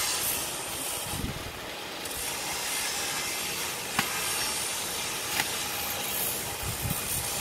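Steady high hiss of outdoor background noise, with a sharp click about four seconds in and another about a second and a half later.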